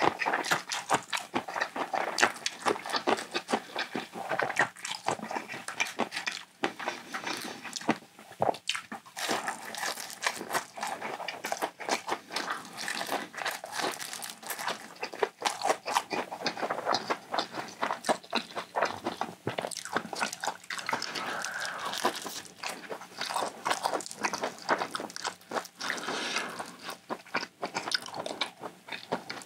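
Close-miked chewing and crunching of Korean fried market food and pancakes. Continuous crisp crunches and clicks come thick and fast throughout.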